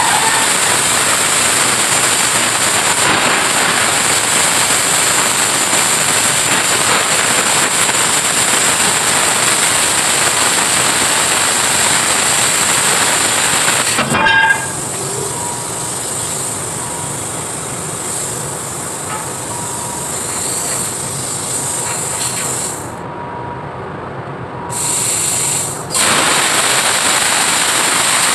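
Air plasma cutter cutting steel plate: a loud, steady hiss of the plasma arc. It cuts off with a click about halfway through and stays at a quieter hiss for about ten seconds. After a short burst, the full cutting hiss starts again near the end.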